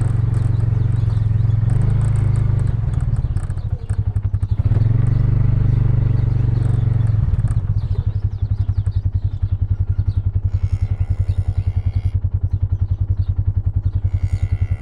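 Engine running steadily, then settling into a slower, evenly pulsing idle about seven seconds in. Near the end there are two short high-pitched squeals.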